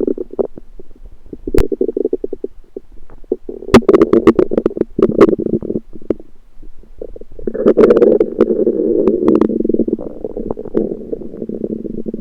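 Human stomach rumbling and gurgling in bubbling bursts, with a few sharp pops; the loudest stretches come about four and eight seconds in.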